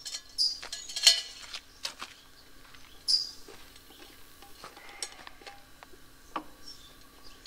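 Camp gear clinking and knocking as it is picked up and set down on a wooden picnic table: scattered sharp taps, the loudest about a second in. A bird gives a few short high chirps.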